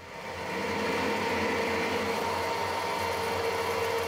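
Harrison 140 metal lathe starting up, coming up to speed within about a second, then running steadily with a whine, while a 9.5 mm twist drill in the tailstock chuck bores into a phosphor bronze bar.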